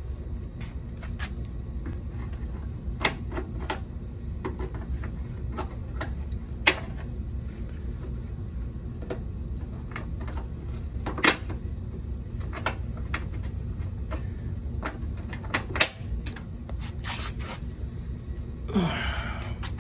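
Irregular light clicks and taps of hand tools against metal, a few sharper knocks among them, over a steady low hum.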